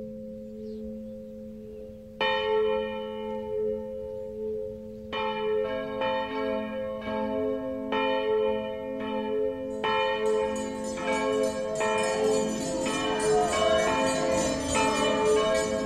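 Church bells ringing: long struck tones that hang and overlap. Fresh strikes come about two seconds in and then every couple of seconds, and the ringing grows denser from about ten seconds in.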